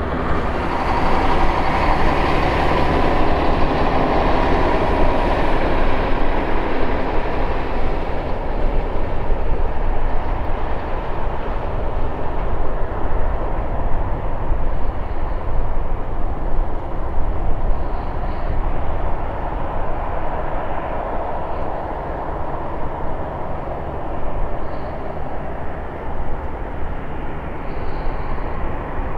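Twin CFM56-7B24 turbofan engines of a Boeing 737-700 running at taxi power: a steady jet rumble with a whine on top. It is loudest over the first several seconds and eases slightly after that.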